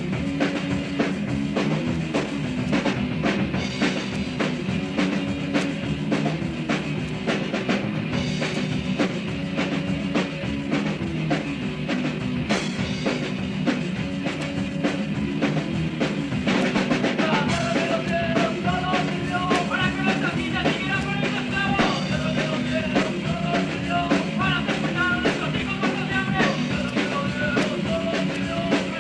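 Punk rock song: a full band playing with a busy, driving drum kit.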